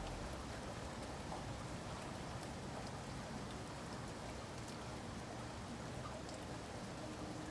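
Steady rain falling, an even hiss with scattered small drip ticks.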